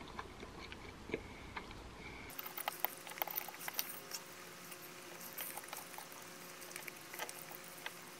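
Eating sounds: a metal fork clicking and scraping against a ceramic pasta bowl, with small mouth sounds, heard as a run of light, irregular clicks.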